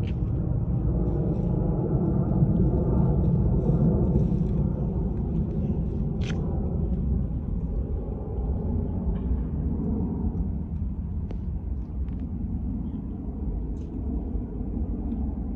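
Boeing 767-300ER jetliner's engines giving a low, steady rumble overhead, slowly fading as the aircraft flies away. A brief high chirp sounds about six seconds in.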